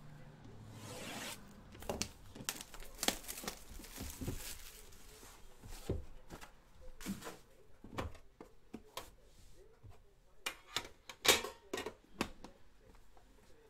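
Shrink wrap on a trading-card box being slit and torn, then the cardboard box and the metal tin inside being handled: a run of short knocks, taps and scrapes, with a louder burst of rustling and clicks about eleven seconds in.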